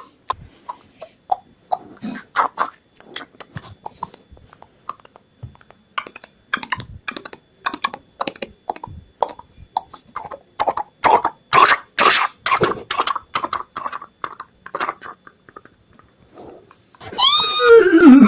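Horse hooves clopping, at first a few scattered steps and then quicker, louder beats in the middle like a horse trotting or running. Near the end a horse whinnies with a call that drops steeply in pitch.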